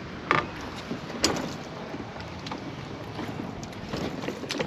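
Water and wind noise around a fishing kayak while a fish is being landed, with two sharp knocks in the first second and a half and a few lighter clicks.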